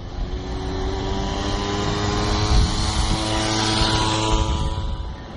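A vehicle passing: a steady humming note with several overtones, under a rushing noise that swells to its loudest about three and a half seconds in and then fades.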